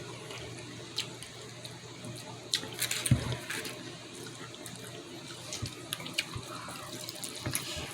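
Steady rush of running water, with scattered light clicks and a soft knock about three seconds in.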